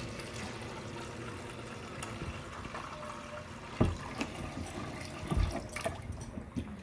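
Tap water running from a kitchen faucet into a pot of washed chana dal in a stainless-steel sink, filling it with water for boiling. Two dull knocks come midway, and the water is shut off near the end.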